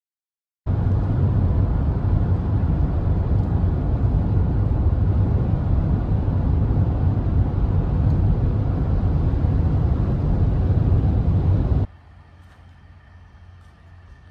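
Steady road and engine noise inside a vehicle cabin at highway speed, mostly a low rumble with a hiss above it. It cuts off suddenly near the end, leaving faint outdoor ambience with a thin steady tone.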